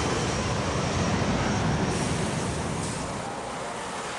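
Street traffic noise: a steady rumble of passing vehicles that slowly fades.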